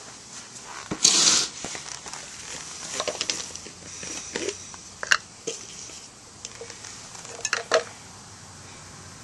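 Handling noises: a dry fibrous tinder bundle rustling and crackling briefly about a second in as it is set down, then scattered sharp clicks and taps as a knife is brought to the cedar hearth board on concrete, with a quick pair of clicks near the end.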